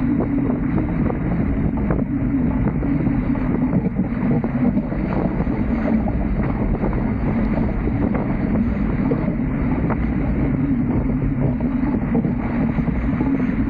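Steady wind buffeting the microphone of a camera on a Dart 18 catamaran under sail, a loud low rumble with water rushing past the hulls.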